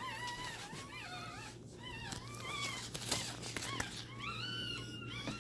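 A newborn litter squealing and whimpering: several high, wavering cries overlapping one another, with a brief rustle about three seconds in.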